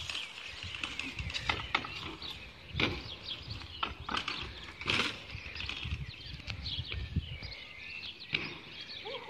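A BMX bike ridden on concrete: tyres rolling and several short knocks as it drops and lands hops, the loudest a little under three seconds in and about five seconds in. Birds chirp in the background.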